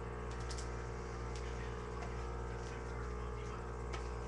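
A few light clicks and taps from a playing card being handled in the fingers, over a steady low electrical hum.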